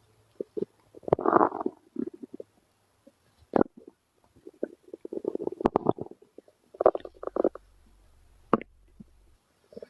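A man's stomach rumbling and gurgling in irregular short runs, with a few brief sharper squelches.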